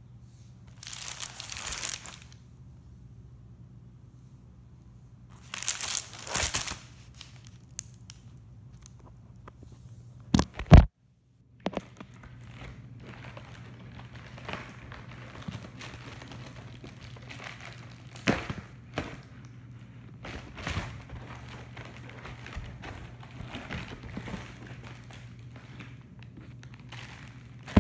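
Plastic bubble mailer crinkling and being torn open: short bursts of rustling at first, then near-continuous crinkling with scattered clicks. A couple of sharp knocks about ten seconds in are the loudest sounds.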